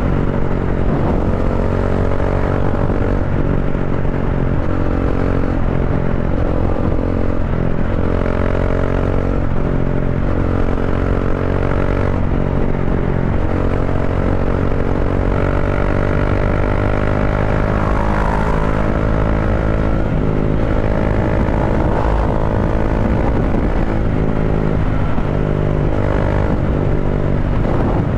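Bajaj Dominar 400's single-cylinder engine running through an Akrapovic slip-on muffler, with the catalytic converter replaced by a resonator, cruising at highway speed. The exhaust note holds a steady pitch that dips and rises slightly with small throttle changes.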